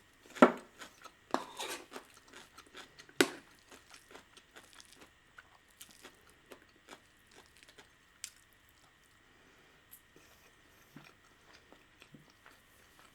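Close-up chewing and wet mouth noises of a person eating risotto, in many short clicks and smacks, louder for the first few seconds and then fainter.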